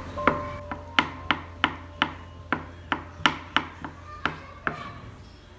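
Kitchen knife chopping cashew nuts on a bamboo cutting board: a steady run of sharp taps, about three a second, that stops shortly before the end.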